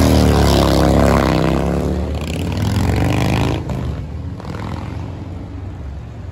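Harley-Davidson motorcycle's V-twin engine running loud with its pitch bending, then dropping away about three and a half seconds in, leaving quieter street traffic.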